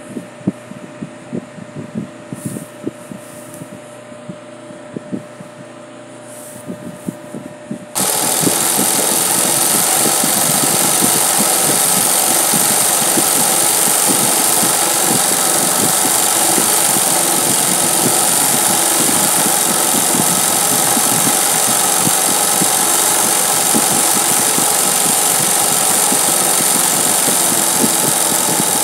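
Industrial zig-zag sewing machine (Singer 20U) doing freehand embroidery. For the first several seconds there are only light scattered clicks. About eight seconds in, the machine starts stitching at high speed, a loud, steady, rapid needle clatter that runs on without a break.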